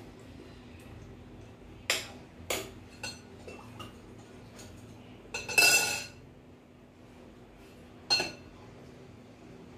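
Metal spoon clinking against glass serving bowls as it is dipped and tapped while filling pani puri: a few separate ringing clinks about two seconds in, a louder cluster of clinks and scraping just past the middle, and one more clink near the end.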